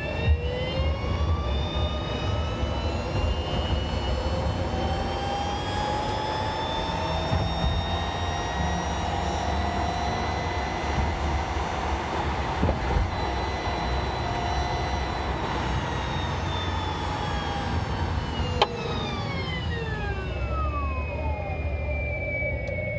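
Nissan Leaf's EM57 electric traction motor and reduction gear whining while driving, over low road rumble. The whine rises in pitch at the start as the car speeds up, holds steady, then falls as it slows. One sharp knock comes just as the slowing begins, which the owner suspects comes from the motor or gearbox mounts.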